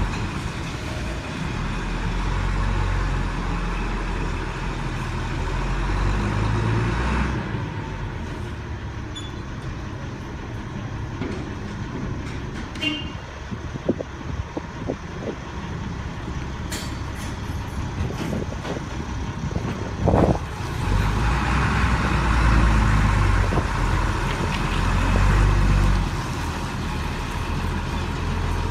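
Large Hyster forklift's diesel engine running under load as it carries a truck box body, pulling hard for the first several seconds, easing off in the middle with scattered clanks, then working hard again. One sharp knock stands out about twenty seconds in.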